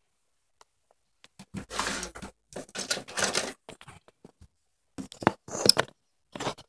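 Handling noise from small hard plastic toy parts: rustling and clicking in several short, irregular bursts, the loudest about five to six seconds in.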